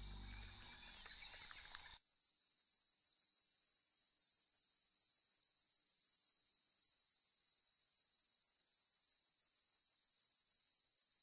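Faint night chorus of crickets trilling, a steady high pulsing chirr that starts suddenly about two seconds in.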